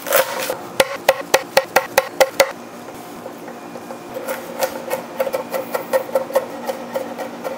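Background music with sustained tones and a quick percussive beat. From about four and a half seconds in, a chef's knife chops rapidly on a wooden cutting board as garlic is minced.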